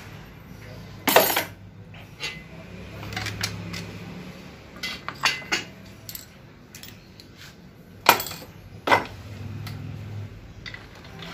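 Steel and friction clutch plates of a Toyota Soluna automatic transmission clinking against each other and the aluminium case as they are worked out of the clutch drum by hand. The sharp metallic clinks come irregularly, loudest about a second in and twice around eight and nine seconds in.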